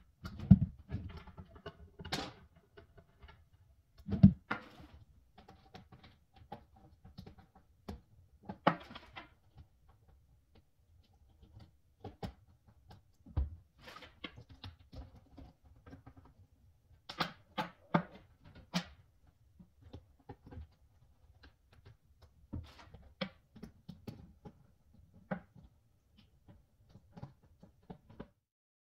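Scattered clicks, small knocks and thumps of drawers, cabinet doors and handle hardware being worked while the handles on a white chest of drawers are swapped. The sharpest knocks come about half a second and about four seconds in.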